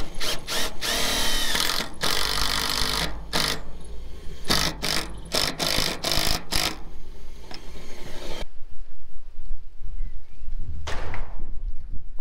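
Cordless impact driver driving screws through a wet steel roof sheet in repeated short bursts for about eight seconds. After that comes a low wind rumble, with a single knock near the end.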